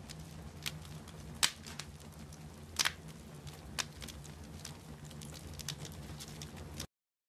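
Wood fire crackling, with irregular sharp pops from the burning logs over a low steady hum; the sound cuts off abruptly near the end.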